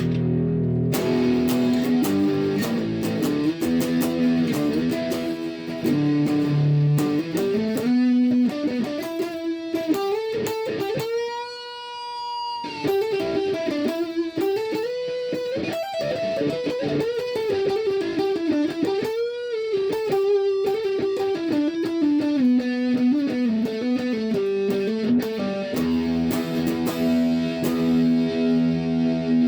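Washburn Eagle electric guitar played with overdrive on both pickups (middle selector position): sustained chords at the start and end, and a single-note lead line in between with a long held note given vibrato about twelve seconds in.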